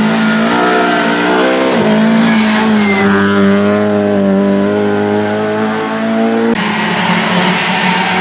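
Suzuki Swift rally car's engine revving hard as it accelerates through a bend, with a brief dip in revs about two seconds in before the pitch climbs and holds high. About six and a half seconds in, the sound cuts abruptly to a second rally car's engine, a Peugeot 206.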